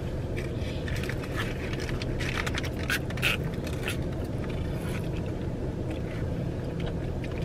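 Steady low rumble of car cabin noise, with scattered light rustles and clicks, the loudest a little after three seconds in.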